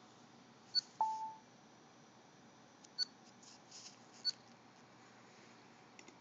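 Dell Precision M6400 laptop chirping: three short, high chirps at irregular intervals, with a brief lower beep about a second in.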